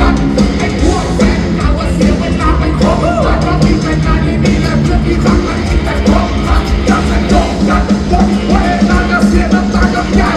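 A live rock band playing loud and steady through the PA with amplified singing and rapping, heard from the crowd.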